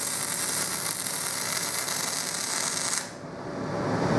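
Welding arc hissing and crackling steadily, cutting off suddenly about three seconds in as the weld is stopped.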